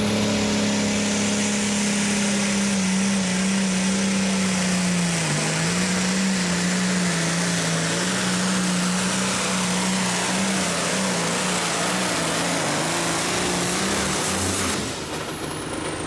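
John Deere hot farm stock pulling tractor's diesel engine at full throttle under load, pulling the weight-transfer sled. It makes a loud, steady drone whose note wavers a little about five seconds in. About a second before the end the throttle is cut: the engine note drops and a high whine winds down.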